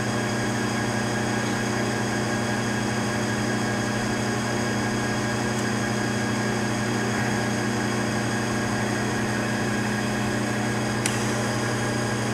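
Royal Master centerless grinder running its automatic infeed cycle, with a steady electric machine hum. A single sharp click comes about eleven seconds in.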